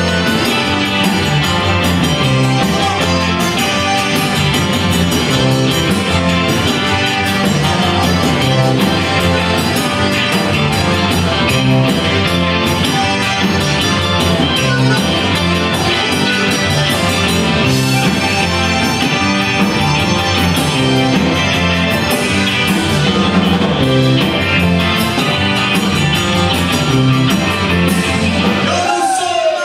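Live Tex-Mex rock band playing: electric guitars, electric bass, drum kit and button accordion, with a steady repeating bass line. The band breaks briefly near the end.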